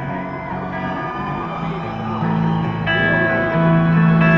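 Live rock band playing, with guitars carrying the music between sung lines and growing louder near the end.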